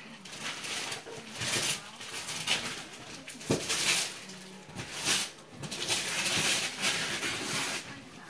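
Wrapping paper rustling and tearing in a run of short bursts as presents are unwrapped and handled.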